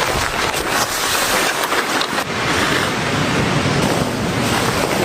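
Heavy pouring rain: a steady, dense hiss with many small sharp spatters through it.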